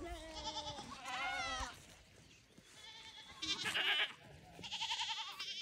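A mixed flock of grazing sheep and goats bleating, several separate quavering bleats from different animals.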